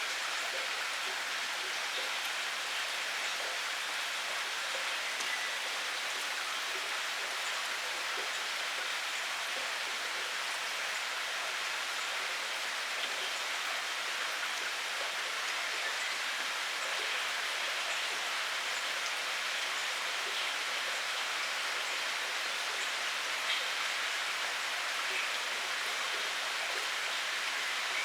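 Steady rain falling: an even hiss with scattered ticks of single drops, one slightly sharper tick about two-thirds of the way through.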